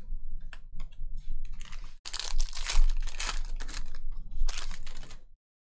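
Foil wrapper of a Panini Prizm football card pack being torn open and crinkled by hand, after a few light clicks; the crinkling stops abruptly near the end.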